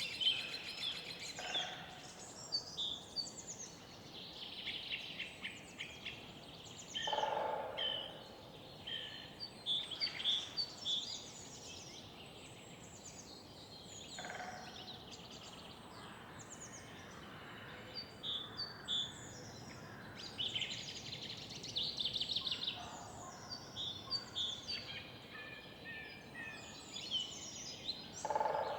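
Several birds singing and calling, with overlapping chirps and trills and a few lower calls, over a steady background hum of the city.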